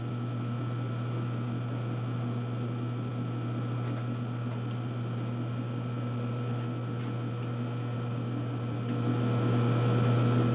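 Steady electric machine hum in a machine shop, most likely the lathe's motor running, with a deep steady drone and a few fainter steady tones above it. It grows a little louder about nine seconds in.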